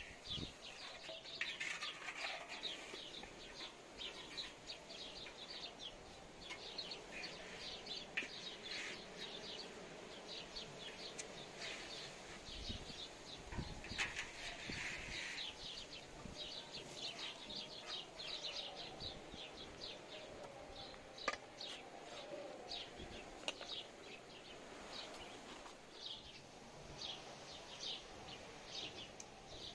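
Small birds chirping in a steady, dense chorus of short high chirps, with a few sharp clicks.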